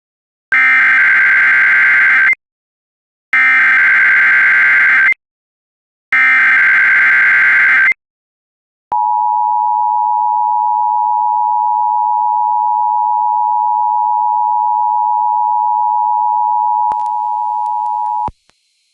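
Emergency alert header: three short buzzy data bursts, each under two seconds with brief gaps between, then a steady electronic attention tone held for about nine seconds that cuts off sharply, signalling that a warning message is about to be read.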